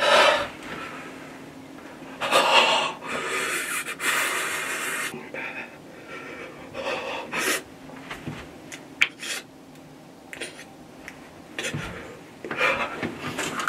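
A person breathing hard close to the microphone: several loud breaths a second or two apart.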